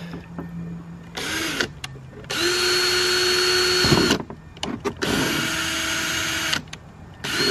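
Cordless drill running in four bursts, a brief one about a second in, two longer runs of about two and one and a half seconds, and a brief one near the end, each with a steady whine, drilling pilot holes for the screws in an aftermarket side skirt.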